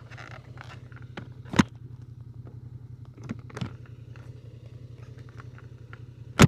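Honda Transalp 750's 755 cc parallel-twin engine idling steadily, with a few sharp knocks over it, the loudest about a second and a half in and right at the end.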